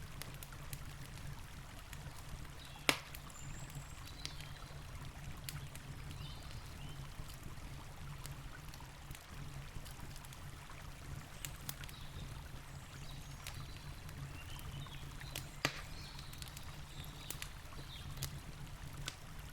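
Campfire crackling with scattered sharp pops, two of them louder, about three seconds in and again later, over the steady low rush of a river.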